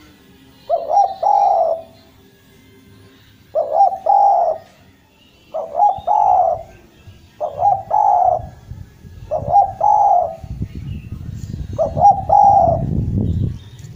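Spotted dove (derkuku) cooing, six calls about two seconds apart, each a short note followed by a longer rolling coo. A low rumble builds under the last two calls.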